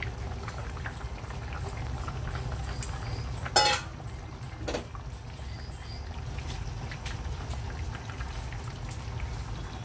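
Large pot of curry simmering on a gas stove: a steady low rumble of the burner and bubbling sauce. A sharp knock with a short ring about three and a half seconds in, and a lighter one a second later.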